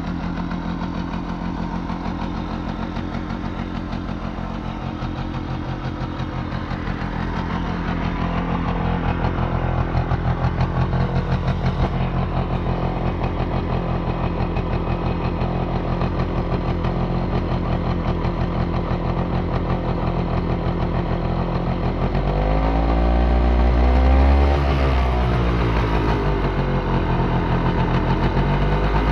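Romet Komar 2352 moped's small two-stroke engine running on a freshly fitted Almot replacement cylinder, idling steadily. About two thirds of the way in it is revved up and let back down, and it starts rising again near the end.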